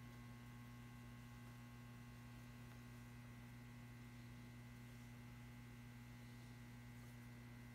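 Near silence: room tone with a steady low electrical hum.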